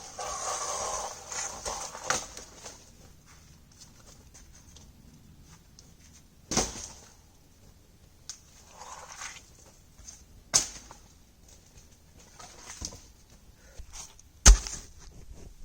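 Dry dead wood being brought down and broken for firewood: a rustling crackle of branches near the start, then three sharp knocks or cracks of wood spaced a few seconds apart, the last the loudest.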